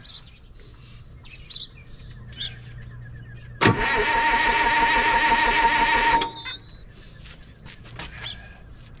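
Detroit Diesel 3-53 turbo two-stroke diesel being cold-started at just above freezing: about three and a half seconds in the starter cranks it loudly for about two and a half seconds, then the sound cuts off abruptly and the engine does not keep running. Birds chirp faintly before and after.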